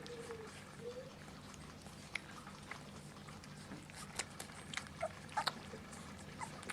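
Small Münsterländer puppies whining: a few rising and falling whimpers in the first second, then scattered light clicks and a couple of short high squeaks about five seconds in.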